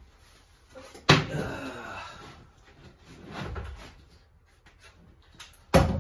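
Sharp knocks against a wooden kitchen base cabinet as a corded jigsaw is handled and set against it: a loud knock about a second in that rings on briefly, a duller bump a little later, and another sharp knock near the end.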